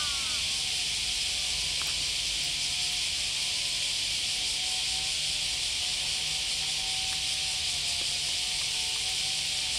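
Cicadas chorusing: a steady, unbroken high-pitched hiss from summer insects in the trees.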